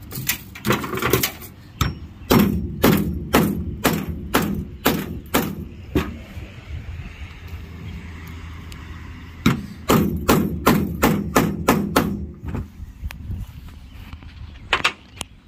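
Claw hammer striking a grommet kit's hole cutter to punch eyelet holes through a rubber-backed step rug on a metal truck tailgate. Two runs of sharp blows, about two a second, a few seconds apart, then two more blows near the end.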